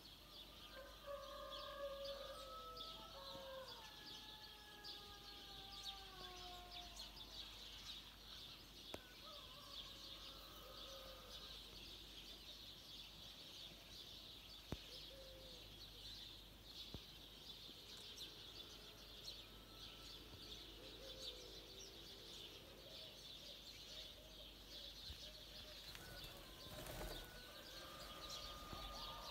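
Faint outdoor ambience of continuous high chirping from distant birds, with a few slow, falling tones from something passing further off.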